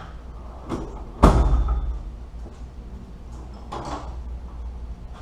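A few knocks and clunks of tools or parts being handled during hand work on the engine, the loudest about a second in with a short ring-out, over a steady low hum.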